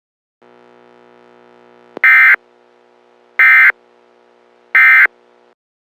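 Three loud, short electronic beeps about a second and a half apart, over a faint steady electronic hum.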